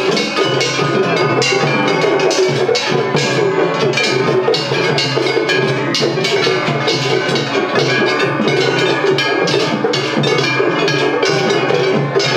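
Festival hayashi from Kumagaya Uchiwa Matsuri floats: rapid, continuous clanging of hand-struck metal gongs (kane) over taiko drums, playing without a break.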